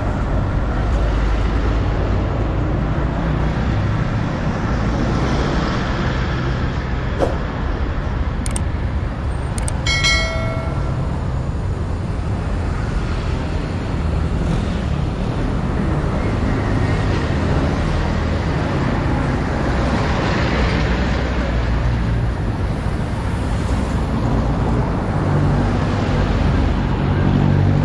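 City road traffic with a steady low engine rumble. A short horn beep comes about ten seconds in.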